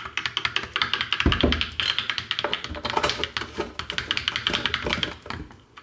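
Plastic drinking straw stirring a milky coffee drink in a glass, ticking against the glass in a rapid, even run of clicks, with one dull thud about a second in.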